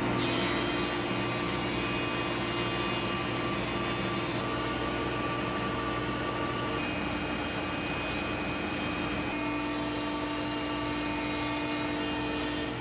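A King Industrial 5 hp 20-inch planer with a spiral carbide cutterhead running with a steady, even hum while a board is fed through it.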